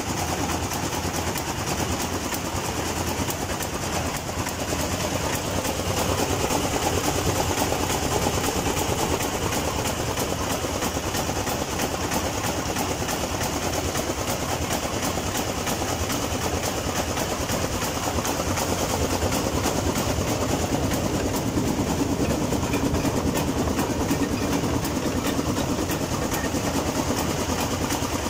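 SRIECO sugarcane juicer running, its diesel engine driving the geared crushing rollers as cane stalks are pressed, with a steady fast mechanical clatter.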